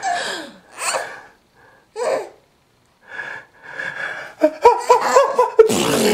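A young child gasping and wheezing for breath between giggles, with short breathy bursts. Near the end this breaks into rapid giggling and a long falling squeal of laughter.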